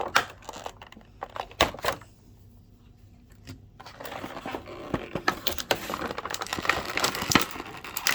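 Plastic toy packaging being handled and opened: a few clicks and knocks, a short lull, then steady crinkling and crackling of plastic through the second half.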